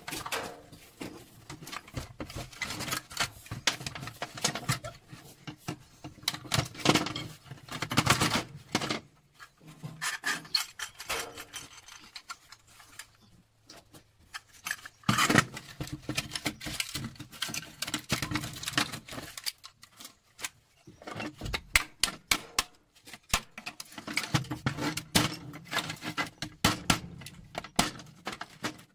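Scrap appliance being taken apart by hand: plastic housing and metal motor parts rubbing, scraping and knocking in irregular bursts of clicks and clatter.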